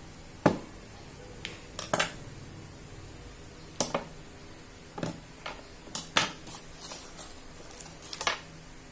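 Metal hand tools, a screwdriver and pliers, being handled and set down on a hard tabletop: about a dozen irregular sharp clinks and knocks, the loudest about half a second in.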